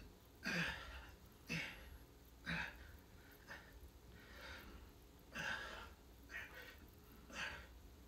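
A man breathing hard through a set of push-ups: a sharp exhale about once a second, several with a short low grunt.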